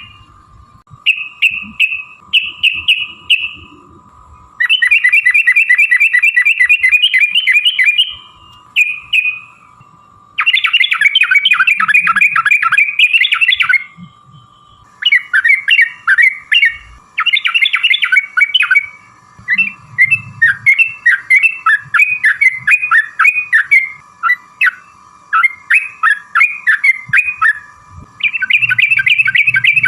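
Yellow-vented bulbul (trucukan) singing: bubbly, chattering phrases broken by long, fast trilled runs, the 'ropel panjang' rapid-fire song prized as a lure to make other bulbuls answer. A faint steady tone runs underneath.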